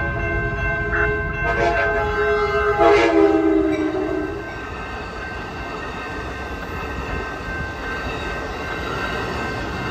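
Pacific Surfliner passenger train sounding its horn for the grade crossing, a shorter blast followed by a long one that ends about four seconds in. The cars then rumble past over the rails. A grade-crossing bell rings steadily throughout.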